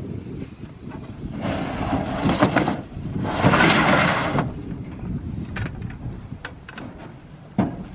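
A hard plastic storage tote scraping as it is slid across the ribbed pickup truck bed, pushed in two strokes of about a second each. A couple of short knocks near the end.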